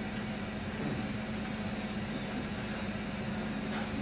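Steady room tone: a constant low hum with a faint hiss, unchanging throughout.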